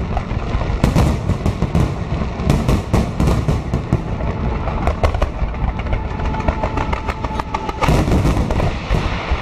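Fireworks display: aerial shells bursting in a dense run of sharp bangs and crackles over a continuous low rumble.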